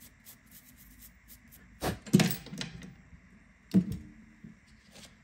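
Knocks and light clicks of small smartphone parts and tools being handled on a workbench: faint ticks, then two sharp knocks close together about two seconds in and another near four seconds.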